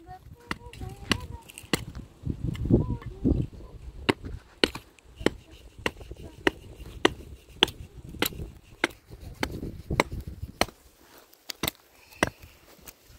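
Sharp blows of a hand tool struck again and again at an even pace, about one every 0.6 seconds, pausing briefly a couple of seconds in and again near the end.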